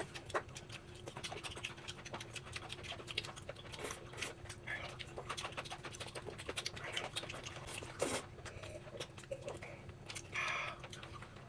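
Someone eating: irregular small clicks and taps of chopsticks and chewing, over a steady faint hum.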